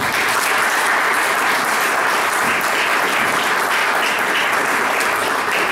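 Audience applause: many people clapping, dense and steady, starting suddenly and much louder than the speech around it.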